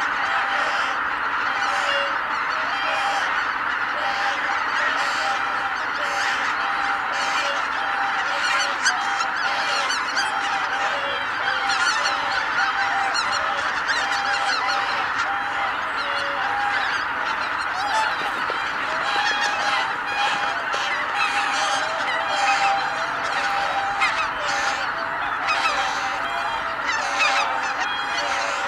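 A huge flock of greater white-fronted geese calling in flight: a dense, unbroken chorus of overlapping honks from thousands of birds lifting off together.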